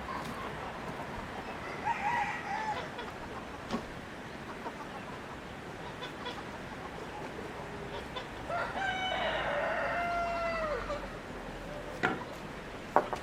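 A rooster crows once, a long call of about two and a half seconds that drops in pitch at the end, after a short chicken call about two seconds in. A couple of sharp knocks come near the end.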